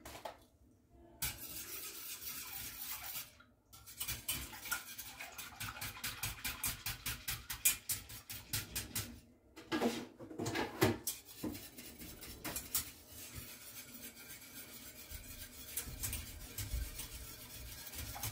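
A whisk beating milk and egg yolks in a stainless steel pot: quick, regular strokes with the wires clattering against the pot, pausing briefly a couple of times.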